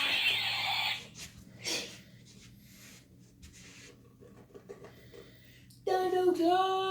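A harsh, noisy sound for about the first second, then near the end a child's drawn-out, wavering vocal noise, like a pretend animal or creature sound.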